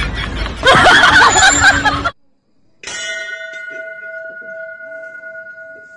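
A loud, noisy burst that cuts off abruptly about two seconds in; after a brief silence, a sustained bell-like ring begins, holding a steady pitch and slowly fading.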